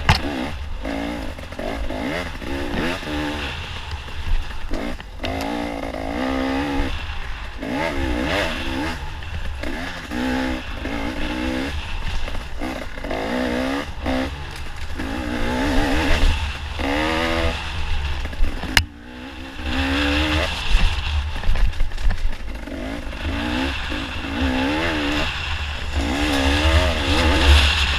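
Dirt bike engine revving up and down again and again as the rider works the throttle through the trail's turns, with heavy wind rumble on the helmet-mounted camera. A sharp click about two-thirds through, followed by a brief drop in the engine.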